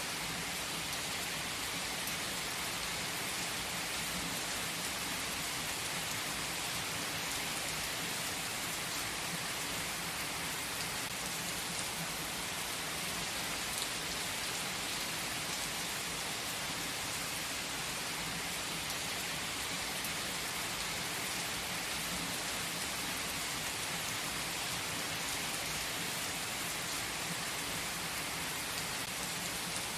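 Steady rain, an even, continuous hiss without pauses or distinct thunder.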